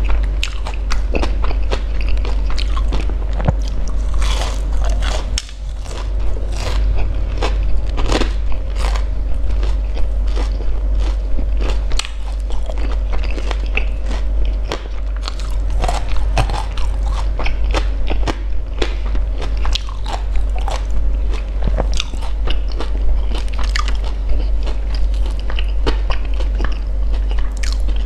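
Close-miked chewing and crunching of bánh cam, Vietnamese deep-fried glutinous rice balls with a sesame and sugar crust: a continuous, irregular run of crisp crunches with chewing in between, over a steady low hum.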